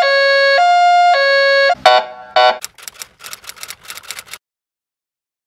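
Two-tone hi-lo ambulance siren sound, switching between a lower and a higher pitch about every half second. It stops a little under two seconds in, followed by two short hoots and a stretch of crackling clicks that ends in silence for the last second.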